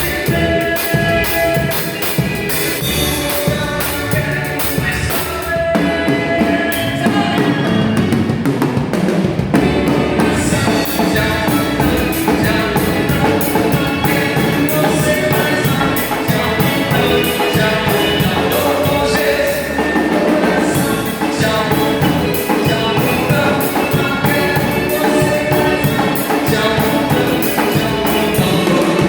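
A band playing music, with a drum kit keeping a steady beat under pitched instruments.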